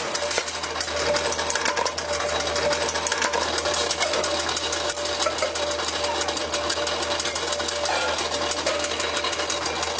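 Workshop machinery running with rapid, irregular mechanical clattering over a steady low hum.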